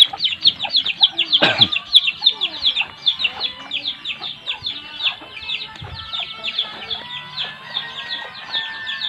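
A brood of chicks peeping continuously: quick high falling peeps, several every second, overlapping one another.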